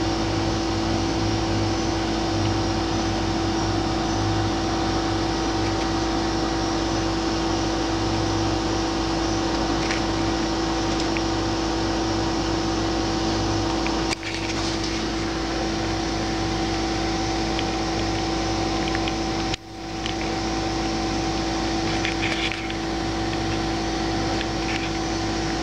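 Steady mechanical hum with several fixed tones, like an air-conditioning unit or fan running. It drops out sharply and briefly twice, about fourteen and twenty seconds in.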